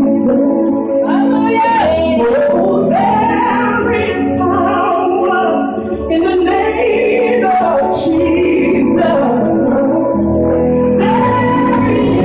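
Gospel music: a woman singing long, held lines that bend in pitch over instrumental backing.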